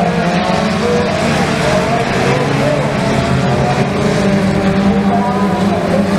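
Several mini stock race cars' engines running hard at once, loud and continuous. Their pitches rise and fall as the cars lift and accelerate through the turns and pass by.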